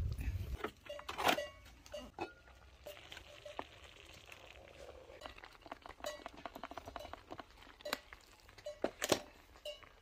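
Wooden spoon stirring and scraping a thick maize-meal mixture in a cast-iron three-legged pot, with scattered knocks and clinks against the pot.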